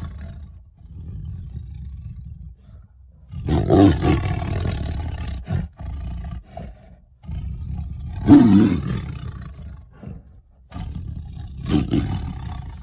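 Tiger roaring: three loud, rough roars about four seconds apart, with lower rumbling between them.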